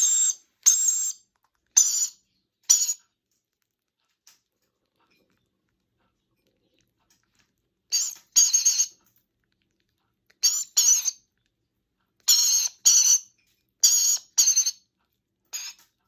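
Parrot chick being syringe-fed, giving short, high squawking begging calls: four in the first three seconds, a pause of about five seconds, then calls mostly in pairs every second or two.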